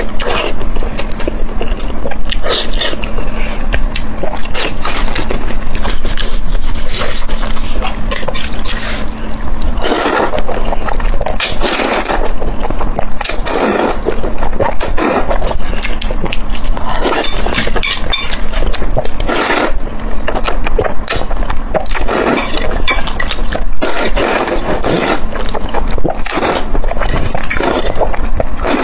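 Close-miked eating sounds: wet chewing and mouth clicks, then repeated loud slurps of saucy noodles from about ten seconds in, over a faint steady low hum.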